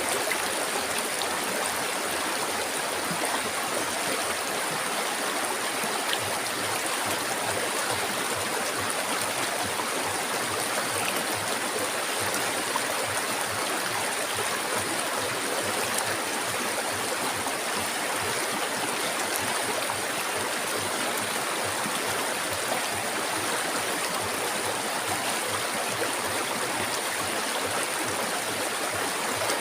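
River water flowing steadily over rocks, a continuous, even rushing. A steady high-pitched hiss runs along with it.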